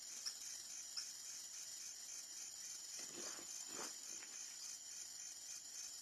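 Insects chirring steadily in a high, evenly pulsing drone, with a couple of soft clicks in the first second and two short faint noises about three seconds in.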